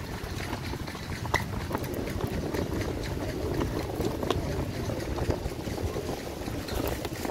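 A flock of feral pigeons milling about on pavement, with wing flutters and scattered sharp taps over a steady low rumble of wind on the microphone.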